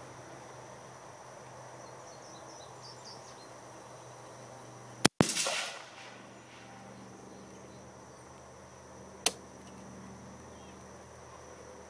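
Two shots from an AR-style rifle with a 14-inch barrel firing .223 ammunition, about four seconds apart; the first is the louder and is followed by a short echo lasting under a second.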